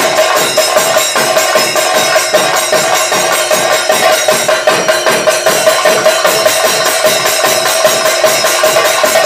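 Kerala chenda ensemble playing thayambaka, the drums struck with sticks in a dense, fast, unbroken run of strokes, with ilathalam hand cymbals ringing over them. This is the idavattam stage of the thayambaka.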